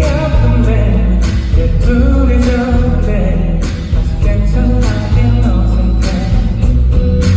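A band playing a rock song live: a sung lead vocal over drums, bass and guitar, with a steady beat of drum hits.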